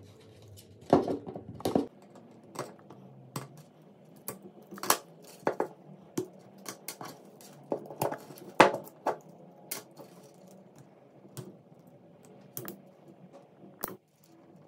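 Thin steel laminations being pried out of a small transformer's core with a scissor blade: irregular metallic clicks, scrapes and clinks, busiest about one to two seconds in.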